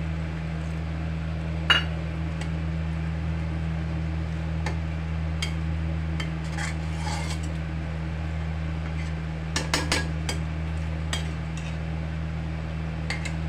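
A perforated metal spatula stirring a creamy curry in a metal kadhai, with scattered clinks and scrapes of metal on the pan. There is a sharp knock about two seconds in and a quick cluster of knocks about ten seconds in, over a steady low hum.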